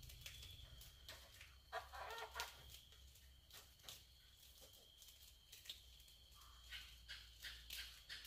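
Near silence, with scattered faint clicks and scratches, a short clucking call about two seconds in, and a faint steady high whine.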